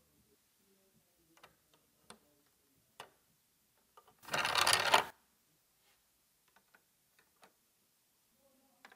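Small plastic clicks of Lego pieces being handled and fitted onto a built model, with one louder noisy burst about four seconds in that lasts about a second.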